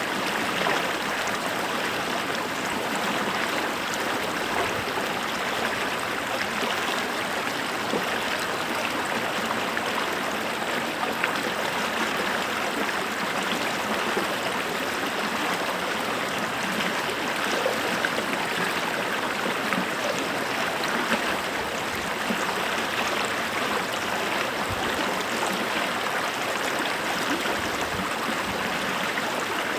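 Running water of a stream or small cascade: a steady, even rush with fine gurgles and splashes.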